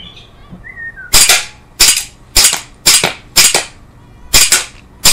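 Tangfolio 1911 CO2 blowback air pistol firing a rapid string of about six or seven sharp shots, roughly one every half second, starting about a second in, with a short gap before the last ones.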